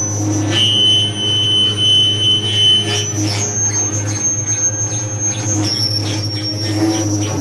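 Live harsh noise music: a loud wall of electronic noise over a steady low hum, with piercing high sustained tones that switch pitch every couple of seconds.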